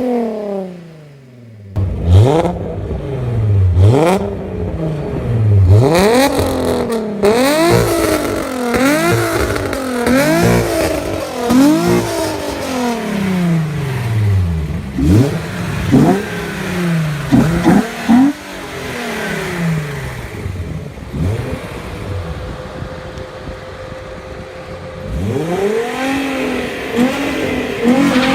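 Volkswagen Golf Mk3 VR6 engine being revved in quick repeated blips, the note rising and falling every second or two. Past the middle it settles into a steadier, quieter note, then revs up again near the end.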